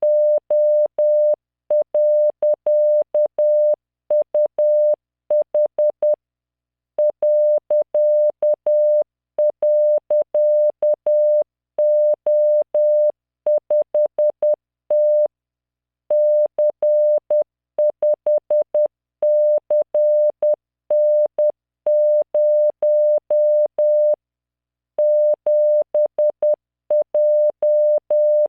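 Computer-generated Morse code: a single 600 Hz tone keyed on and off in dots and dashes at 10 words per minute, sending random five-character code groups with longer pauses between groups. Each tone starts and stops with a faint click.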